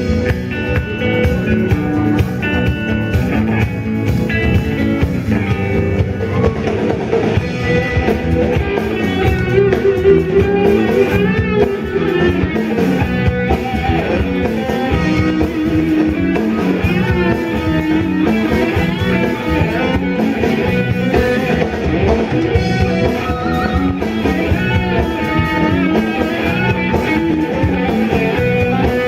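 Background music: guitar-led rock with drums, playing steadily throughout.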